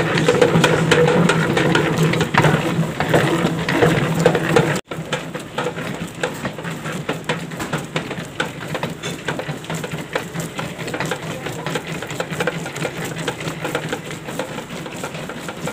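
Commercial dough mixer with a dough hook, running at second speed and kneading a large batch of bread dough that is nearly smooth and elastic. A steady motor hum with a rapid clatter. It is louder for about the first five seconds, then quieter after a brief break.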